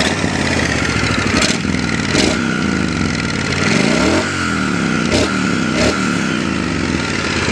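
Triumph Bonneville T100's liquid-cooled parallel-twin running through Scrambler 900 stock-type silencers, revved up and down several times with short throttle blips. A mild, stock-like exhaust note.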